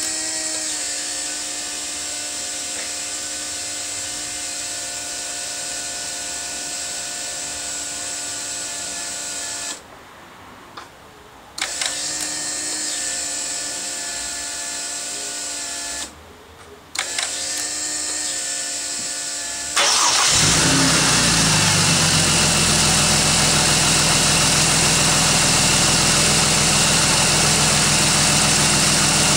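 Bosch 044 external fuel pump buzzing steadily, cutting out twice, for about two seconds and then about one, before starting again. About twenty seconds in, the car's turbocharged 4.0-litre inline-six starts and runs at idle, much louder than the pump.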